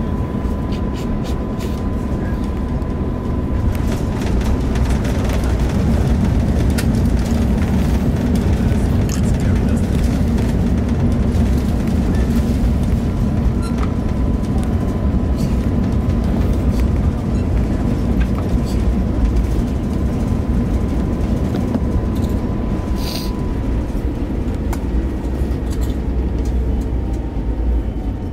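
Airbus A350-900 cabin during the takeoff roll: the Rolls-Royce Trent XWB engines at takeoff thrust and the steady low rumble of the wheels on the runway, building over the first several seconds and then holding steady, with scattered light clicks and rattles. A thin steady tone runs through most of it and fades out near the end.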